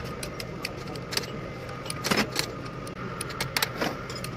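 Irregular metallic clicks and clinks of a long socket wrench and hand tools working on bolts at the connecting-rod caps of a diesel engine block, over a steady low hum.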